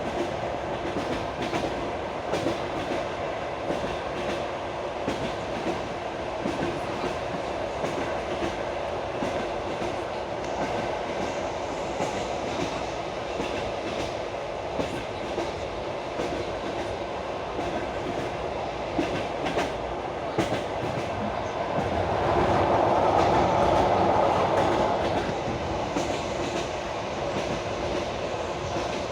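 Railway carriage running along the track: a steady rolling rush with the wheels clicking irregularly over rail joints. The rush swells louder for about three seconds near the end.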